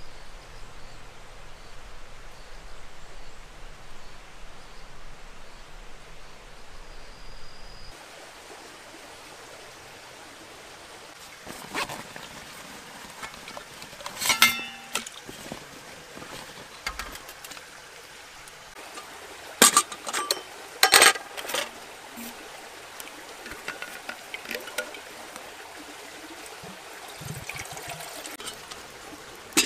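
Outdoor ambience with a faint steady hiss. It gives way to camp gear being handled in short, sharp clacks and knocks, the loudest a cluster past the middle. Near the end water pours from a Stanley vacuum bottle into a small kettle.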